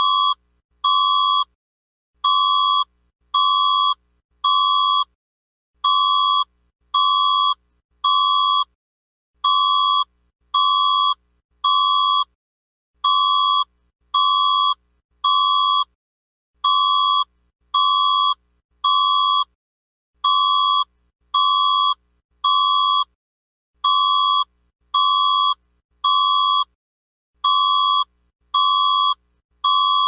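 Electronic emergency alert alarm tone: a loud high beep sounding in sets of three, about a second apart, with each set of three repeating every three and a half seconds or so.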